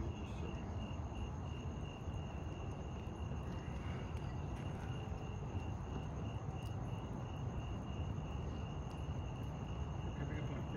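Crickets chirping steadily at night, about three chirps a second, with a thin continuous higher insect trill above them and a steady low rumble underneath.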